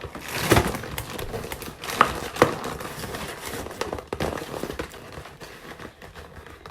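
Cereal being poured from its box: the plastic liner bag crinkling and dry cereal rattling into a bowl, with a few sharper knocks.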